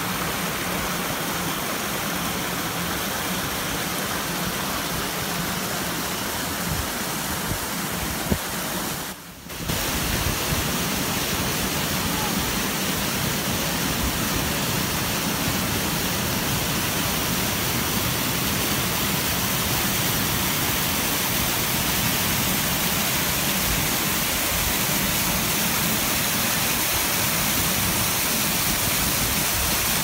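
Waterfall pouring over stepped rock ledges: a steady, even rush of falling water that cuts out briefly about nine seconds in, then carries on slightly louder.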